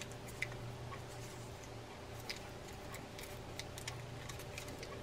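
Faint, scattered clicks of small metal fishing-reel parts as the side plate of a Daiwa Millionaire 4HM baitcasting reel is worked onto its screws and spring posts, over a low steady hum.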